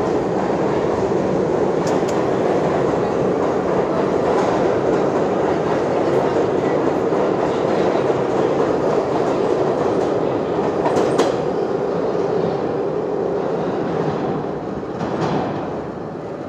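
Train running on the rails: a steady rumble of wheels on track, with a few sharp clicks as the wheels pass over rail joints. The rumble eases off near the end.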